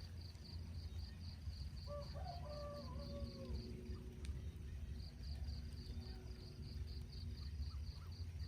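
Insect chirping in steady high pulses, about three a second, breaking off for about a second past the middle and then resuming, over a low rumble. A rooster crows once in the distance about two seconds in.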